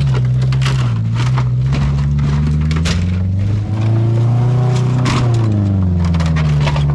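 A truck engine revving up and down under load, with repeated crunching and cracking sounds throughout.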